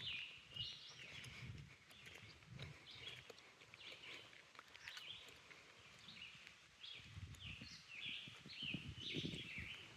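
Faint songbird song in the woods: short chirps and slurred notes repeating again and again. Soft low rustling comes under it at the start and again over the last few seconds.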